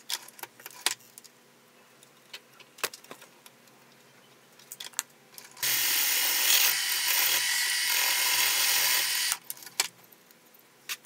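Milling machine spindle turning a shop-made boring head as it cuts a bore in a metal plate: a steady, loud cutting noise comes in about five and a half seconds in and stops cleanly about four seconds later. Before and after it, scattered light clicks and taps from the tooling being handled and adjusted.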